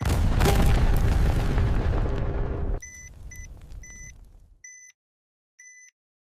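Sound-effect bomb explosion: a sudden loud blast with a deep rumble that cuts off sharply after about three seconds and trails away. An electronic bomb timer's short high beeps start again under the tail and go on about once a second.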